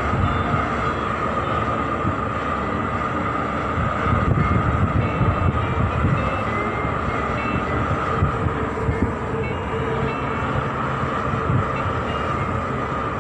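Steady machinery drone aboard a ship: a constant hum over an uneven low rumble.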